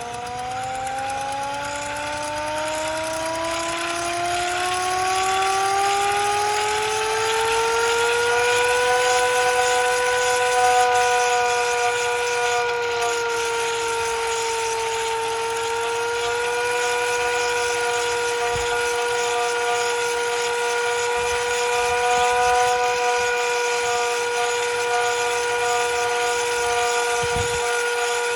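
Vixen Horns VXS-2000MTP hand-crank tornado siren being cranked up: a chord of two wailing tones climbs in pitch over the first eight or nine seconds as the rotor winds up, then holds steady at speed, sagging slightly once about midway.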